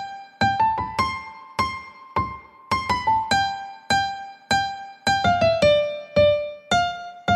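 Short music interlude: a melody of single keyboard notes, each struck and left to fade, at about two notes a second.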